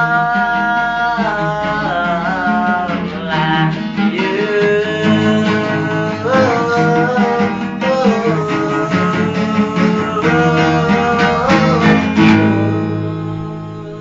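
Music: the end of a guitar-accompanied song, with a melody of long, sliding notes over plucked guitar, finishing on a held chord that fades out near the end.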